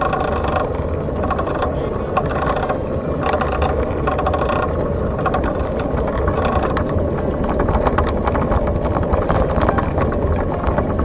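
Steady loud wind rush and rumble on the microphone while riding along the road.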